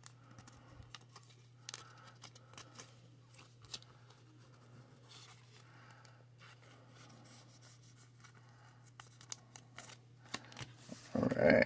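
Faint rustles and light clicks of trading cards being handled and slid into plastic card sleeves, over a low steady hum.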